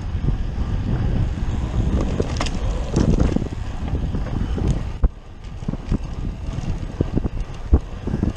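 Wind buffeting the microphone of a cyclist riding at speed, a steady low rumble. Two sharp knocks come about five seconds in and near the end.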